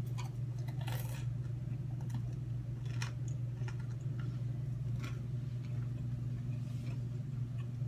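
A steady low hum with a few faint clicks about one, three and five seconds in.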